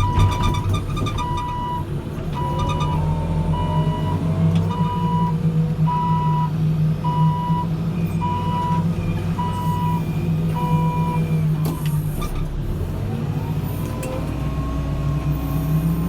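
Backhoe loader's diesel engine running while a reversing alarm beeps steadily, about three beeps every two seconds. The beeping stops about eleven seconds in, and the engine note drops and then rises again.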